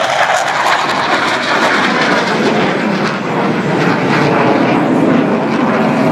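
Loud, steady jet engine noise from a military jet climbing overhead while trailing display smoke.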